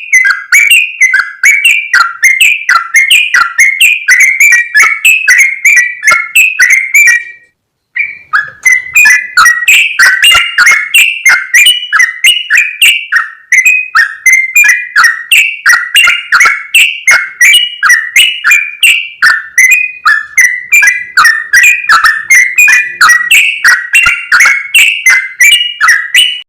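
Bulbuls, chiefly the yellow-vented bulbul (trucukan), calling loudly in a fast, unbroken chatter of short notes, about three or four a second. There is a brief break about a third of the way in.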